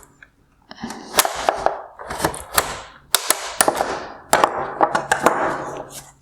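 Needle-nose pliers prying the AFS swivel motor out of a plastic headlight housing: a run of sharp plastic clicks and snaps in several clusters, with scraping and rattling between them.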